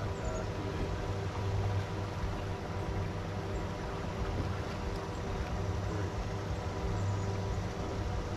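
Bow-mounted electric trolling motor on a bass boat running steadily: a low hum with a thin whine over it that holds the boat in position.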